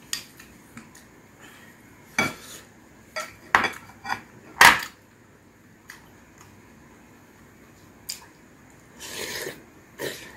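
A wooden spoon and chopsticks clinking and scraping against ceramic bowls during a meal: a scattering of short, sharp clinks, the loudest about four and a half seconds in.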